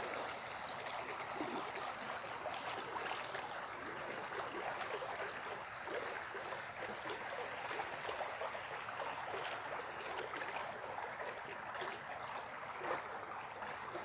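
Small woodland creek flowing steadily, a continuous even rush of water.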